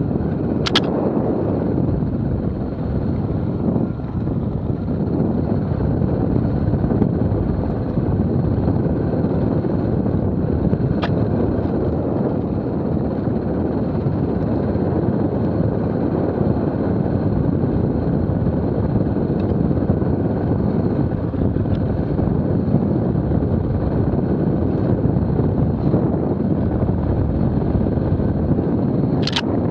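Off-road motorcycle riding along a dirt trail, its engine and wind on the helmet-mounted microphone making a steady rumble. A few sharp clicks cut through it: about a second in, around eleven seconds, and near the end.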